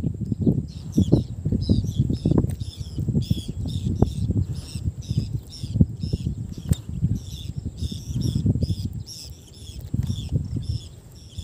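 Irregular water splashing and sloshing close to the microphone, with birds chirping rapidly and repeatedly in the background.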